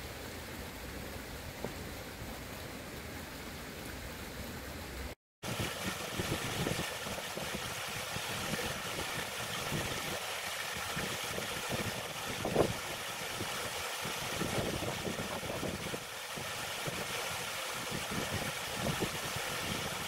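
Water from small fountain jets splashing into a pond, then, after a cut about five seconds in, a louder steady rush of water cascading down an artificial rock waterfall into the pond, with low uneven rumbles underneath.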